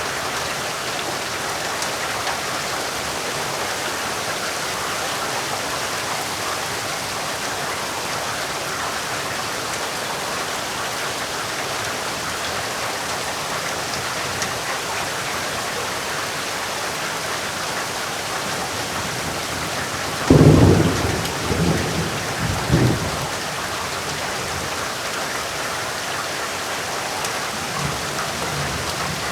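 Heavy rain falling steadily. About two-thirds of the way through, a loud, deep rumble of thunder swells in several surges over roughly three seconds, then dies back under the rain.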